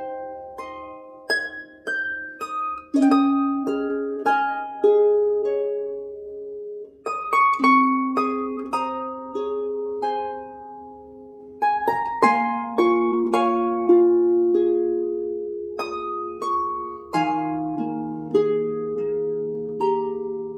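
Instrumental background music: a gentle melody of plucked-string notes that ring and fade, with chords underneath.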